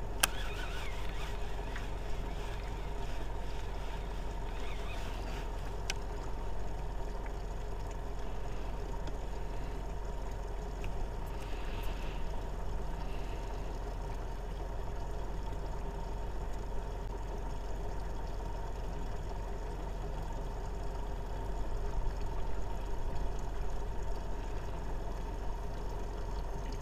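Steady low hum with faint steady tones over an even hiss, the running sound of a boat sitting on calm water, with a few faint clicks.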